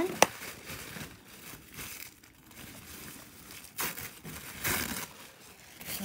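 A thin crinkly sheet being handled and crumpled in the hands, with irregular rustling and two louder crinkles in the second half. A sharp click, the loudest thing, comes just after the start.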